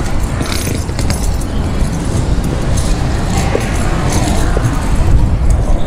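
Road traffic on a busy city street: cars passing, over a continuous low rumble, with scattered light clinks and ticks.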